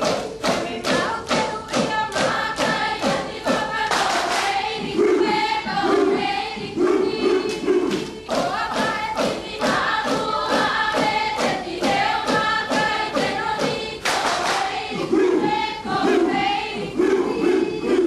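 A chorus of Marquesan dancers singing together in a traditional dance song over a steady percussive beat of about three strikes a second.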